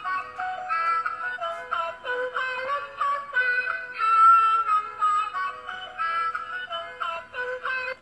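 Electronic toy fishing game playing its built-in song, a melody with a synthesized voice singing words that cannot be made out; the song cuts off suddenly at the end.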